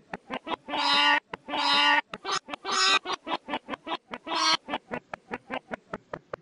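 Short clips of people's voices retriggered in a rhythmic remix: a fast, even train of short clicking sounds at about five a second, with four longer pitched vocal notes cutting in.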